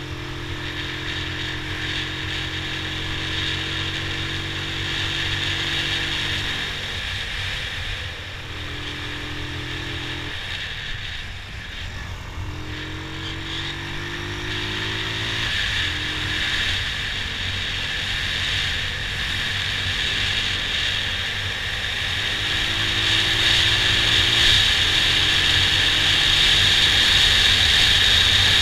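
Motorcycle engine running under way, heard from the rider's seat. Its pitch rises and drops several times with throttle changes, over a rushing noise that grows louder near the end as the bike speeds up.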